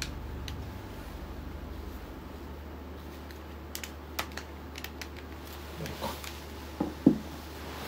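Handling noise from a handheld camera rig being adjusted: scattered small sharp clicks in the middle, then a few louder knocks near the end, over a steady low hum.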